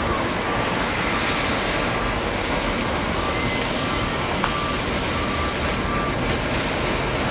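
Steady, dense mechanical noise of a large machine running, with a faint whine that comes and goes and one sharp click about four and a half seconds in.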